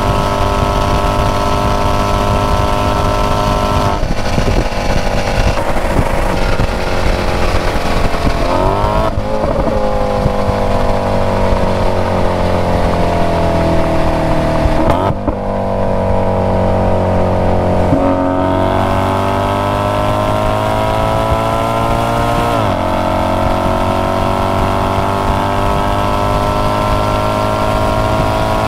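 Maserati Quattroporte Sport GTS's 4.7-litre V8 running at speed through its exhaust. Its pitch holds, then sinks slowly over the first half. After a brief dip about halfway, it climbs under acceleration, drops suddenly twice at upshifts, and rises again.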